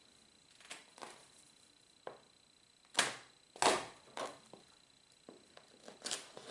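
A long-bladed knife (a 'duck chopper') cutting through a goose's neck on a cutting board. It makes a string of sharp clicks and knocks as the blade works through and hits the board, the two loudest about three and three and a half seconds in.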